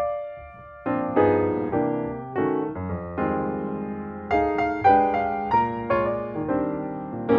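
Background keyboard music, piano-like notes and chords struck and left to ring and fade, with a brief soft pause about a second in.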